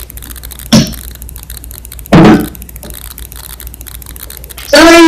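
Two short knocks about a second and a half apart, then a loud, held pitched sound starting near the end.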